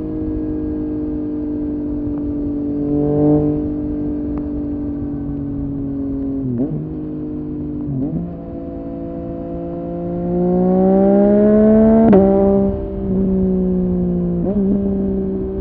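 Yamaha MT-09 three-cylinder engine through an aftermarket Dominator HP8 muffler, ridden. The engine note sags slowly, breaks briefly twice at gear changes, then climbs under acceleration about ten seconds in, with a sharp crack near the peak before the pitch drops at an upshift.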